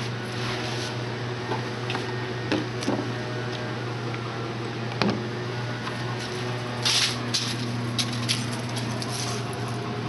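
A steady low hum with scattered clicks and rustles from a handheld camera being moved about; a cluster of louder rustles and knocks comes about seven to eight seconds in.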